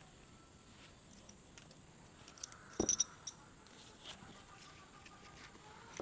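Hands handling a small fabric coin pouch: soft rustling and light clicks, with a short metallic clinking of its metal zipper and pull tab about three seconds in.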